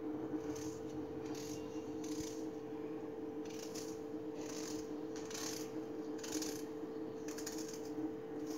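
Knife slicing a raw onion held in the hand: about ten short, crisp cuts at irregular intervals, over a steady low hum.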